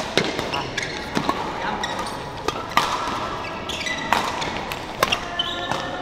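Badminton rally on an indoor court: several sharp racket hits on a shuttlecock, with shoes squeaking on the court floor between them.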